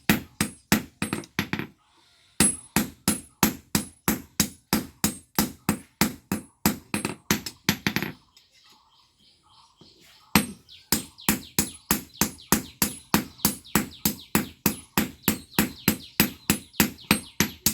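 Blacksmith's hammers striking metal on an anvil in a fast, even rhythm of about three to four blows a second, each blow with a short metallic ring. The hammering breaks off briefly after about two seconds, then stops for about two seconds in the middle before starting again.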